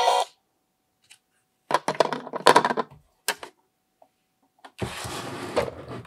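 Hard plastic toy parts and a plastic toy cup being handled. There is a cluster of clacks and rattles about two seconds in, then a single click, then about a second of noisy scuffing near the end.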